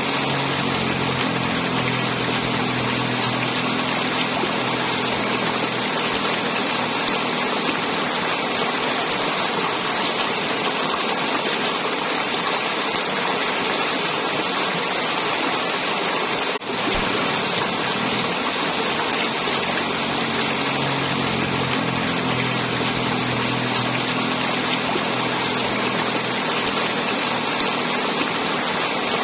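River water flowing and gurgling in a steady, unbroken rush, with a brief dropout a little past the middle.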